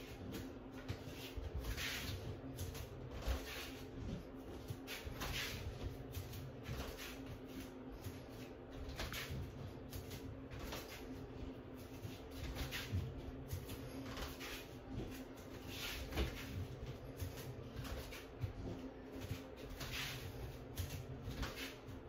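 Soft swishing and shuffling repeated about every two seconds, from a person stepping through capoeira ginga footwork with clothing rustling, over a steady low hum.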